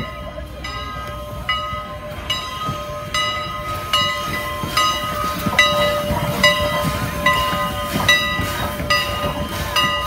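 A steam locomotive's bell ringing steadily, struck a little faster than once a second, as 1910 2-6-0 Mogul steam locomotive No. 89 rolls slowly past, with the rumble of the engine moving beneath it.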